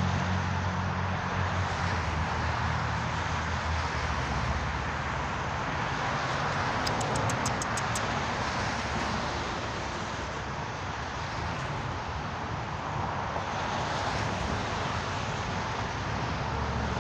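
Steady outdoor background hiss and rumble. A low hum runs through the first four seconds, and a quick run of about eight high ticks comes about seven seconds in.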